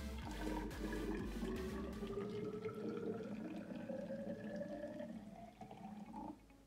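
Water pouring from a small aluminium cooking pot into a tall graduated measuring cylinder. The pitch of the splashing rises steadily as the column of water fills, then stops abruptly about six seconds in.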